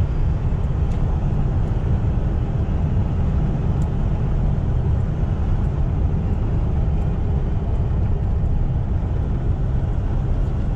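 Steady low rumble of a car driving at speed, heard from inside the cabin: road and engine noise.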